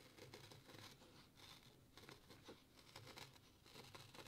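Faint, irregular scratching and ticking of a circle cutter's blade scoring felt as the fabric is turned against it, barely above near silence.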